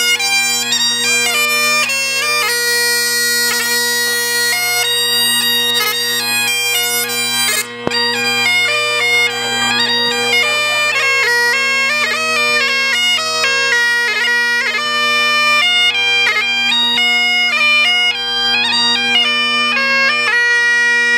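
Bagpipe playing a melody on the chanter over its steady, unchanging drones, with a brief dip in level about eight seconds in.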